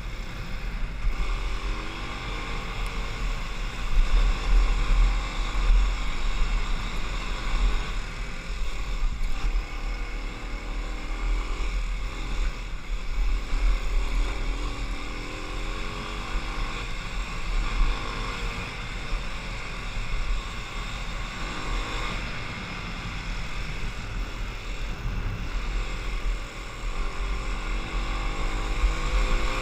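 Kawasaki KLX 250's single-cylinder four-stroke engine running under way, its pitch repeatedly rising and falling with the throttle, over a steady low rumble of wind on the microphone.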